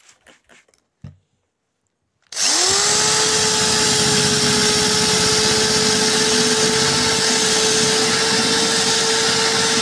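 A couple of spray-bottle squirts, then an electric drill spins up about two seconds in and runs at a steady high hum as its diamond-coated tube bit grinds into wet glass. The bit is held tilted to cut the starting ring in the glass.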